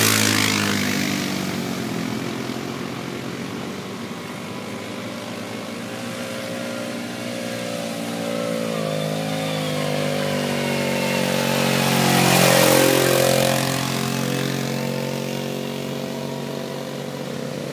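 Quad bike (ATV) engines running as a line of quads drives past on a dirt track. One has just gone by at the start and fades with a falling pitch. Another grows louder and goes past about twelve seconds in, its pitch dropping as it passes.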